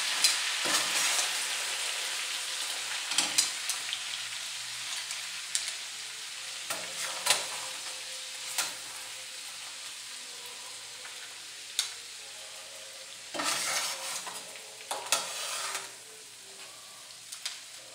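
Crab legs sizzling in melted butter in an aluminium skillet, the sizzle slowly dying down as the burner has just been turned off. Metal tongs click against the pan now and then as the legs are turned and lifted, with a louder rush of sizzling for a couple of seconds near the end.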